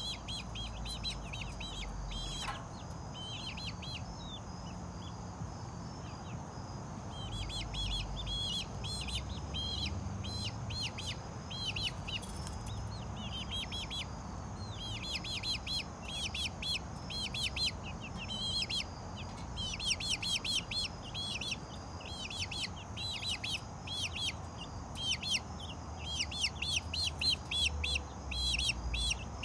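Young chickens peeping: short, high chirps that slide downward, scattered at first and then coming in quick runs from about a quarter of the way in.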